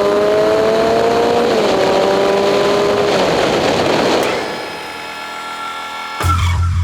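Suzuki GS850's inline-four engine pulling under acceleration with wind rush, its pitch rising and then dropping once on a gear change about a second and a half in. The engine sound gives way to a broad rush and fades about four and a half seconds in. Near the end a low throbbing hum starts suddenly.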